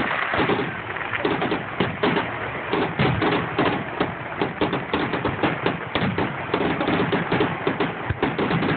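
Fireworks going off: a dense, rapid run of pops and crackles with a few louder bangs among them.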